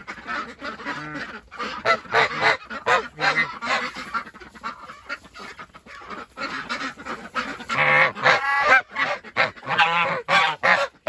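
Domestic geese honking in a quick run of short, repeated calls, loudest about eight seconds in and again near the end.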